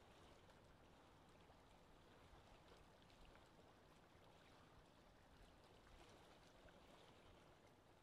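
Faint, steady lake ambience: wind with soft water sounds.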